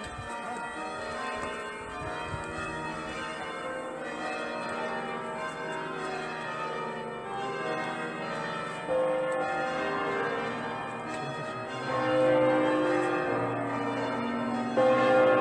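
Church bells ringing, several bells at once with overlapping, lingering tones. Louder new strokes come in about nine, twelve and fifteen seconds in.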